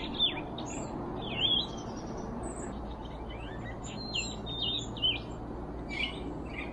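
Small forest birds calling, a black-capped chickadee among them: many short, high chirps and quick falling whistles from several birds, over a steady low background noise.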